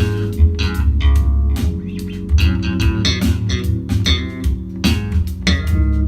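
Guitar music with a heavy bass guitar line and drums, played in stereo through a pair of Klipsch RP-150M bookshelf speakers on a Denon X2300 receiver, heard through a phone microphone in the room.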